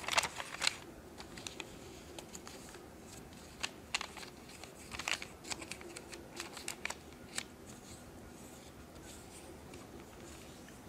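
A paper sheet being folded and creased by hand: irregular dry rustles and short scraping clicks as fingers and fingernails press the folds flat, thinning out in the last few seconds.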